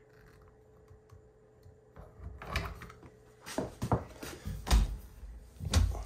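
A few knocks and thuds about a second apart, after about two seconds of near quiet, as a wooden cabinet door under a kitchen island is handled and pulled open. The last knocks are the heaviest.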